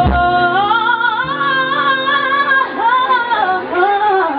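A woman singing live into a microphone, drawing out long notes that bend up and down, over steady held accompaniment chords.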